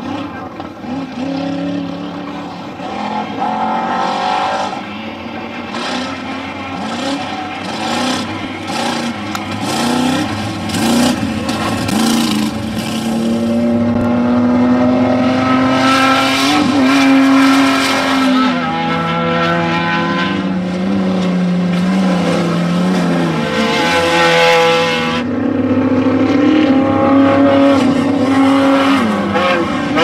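Off-road race truck engines revving hard, their pitch climbing and then dropping back over and over with throttle and gear changes. Louder from about halfway through as a truck comes past close by.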